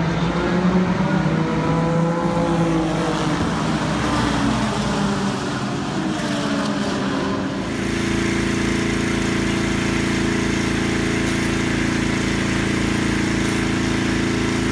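A field of GT race cars accelerating away at a race start, their engines rising in pitch as they pass. About eight seconds in, this gives way abruptly to a single race-car engine idling steadily with a low, even pulse.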